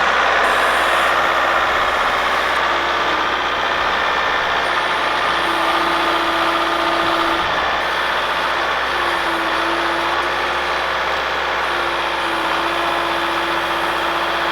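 Skid steer loader engine running steadily, with a pitched whine that comes and goes three times in the second half.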